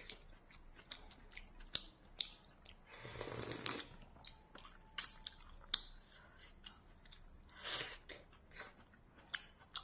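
Close-up eating sounds: a person chewing, with many sharp crunches and clicks, and a longer noisy sound about three seconds in and again near the end.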